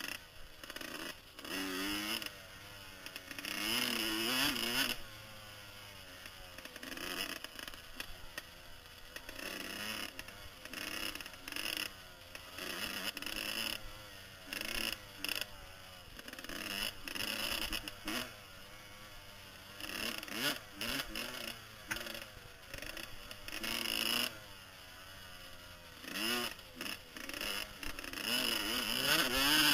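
Kawasaki KX125 two-stroke motocross engine revving up and down again and again as the bike is ridden along a dirt trail, heard from a helmet-mounted camera.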